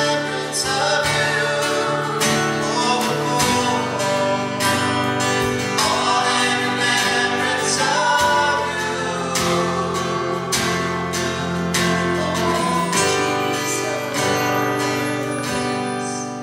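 A man and a woman singing together over a strummed acoustic guitar, growing quieter near the end as the song closes.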